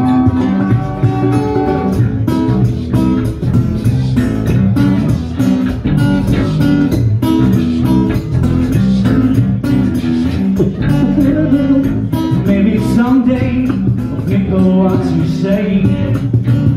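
Live acoustic band playing an instrumental stretch of a song: strummed acoustic guitars over a white electric bass guitar, loud and continuous.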